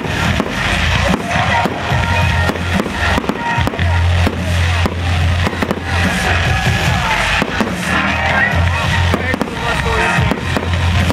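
Fireworks bursting and crackling, with many sharp bangs in quick succession, over loud music with a heavy bass.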